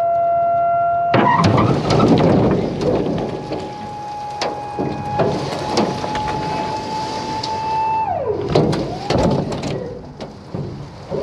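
Ash logs sliding and thudding off the tipping bed of a dump trailer, with a loud crash of logs about a second in. Underneath is the steady whine of the trailer's electric hydraulic pump, which winds down and stops about eight seconds in.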